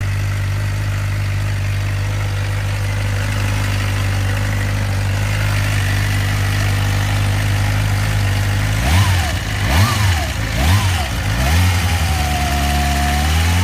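2007 Suzuki GSX-R600 inline-four engine idling with a steady high whine. It is revved three times in quick succession about nine seconds in, then held at a slightly raised idle. The whine started after the bike fell over, and the owner places it in the top end on the right side.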